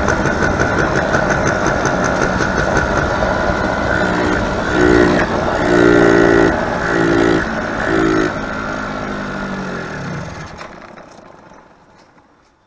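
Two-stroke 90cc engine of an Eton Viper 90R ATV running under way, surging four times, then dying out over the last couple of seconds as it cuts off under throttle. The owner suspects fuel starvation from a sticking float or a carburettor needle that needs adjustment.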